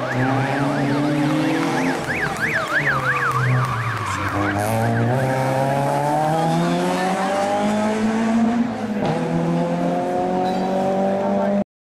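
Rally course car ('000' car) driving through with a fast rising-and-falling siren for the first five seconds. Its engine eases off about four seconds in, then revs up hard as it accelerates away, with an upshift near nine seconds. The sound cuts off suddenly just before the end.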